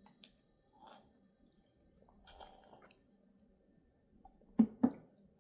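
Mouth sounds of someone tasting a thick cacao coconut drink: soft wet mouth noises, then two short loud lip smacks about four and a half seconds in.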